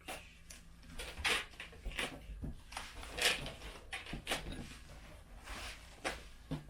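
A series of irregular short knocks, taps and rustles close to the microphone, like objects being handled and moved about.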